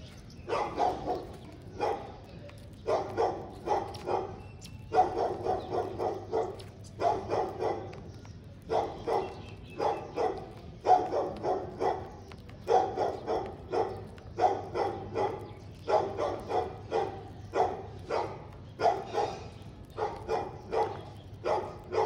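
A dog barking over and over, in quick runs of barks with short pauses between them.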